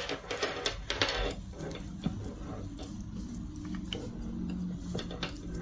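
A wire necklace and its clasp being handled: small metal clicks and rattles come thick in the first second and a half, then scattered light clicks.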